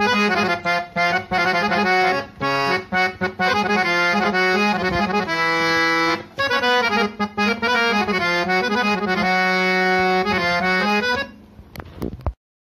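Scale-changer harmonium being played: a melody of short notes over a held low drone note. The playing stops about a second before the end, leaving a few faint clicks.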